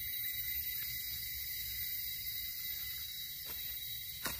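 Steady high-pitched insect drone. Near the end comes a sharp crunch, as from a step or the basket on dry leaf litter.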